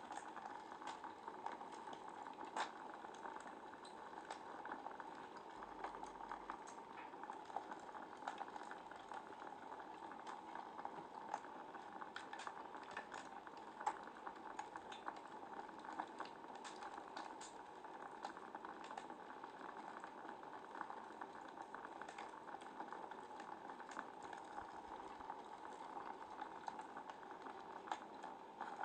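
Wood fire burning in a fireplace, crackling steadily with frequent small snaps and a few louder pops.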